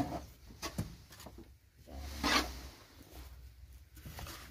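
Digging in stony soil with a hand tool: a few light knocks, then one longer rasping scrape about two seconds in.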